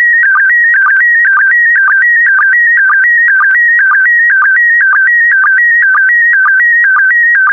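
Slow-scan TV signal in PD120 mode: a loud, continuous, high electronic tone that warbles between pitches as it carries the picture's brightness, broken by a short lower sync blip about twice a second, each marking a new pair of scan lines.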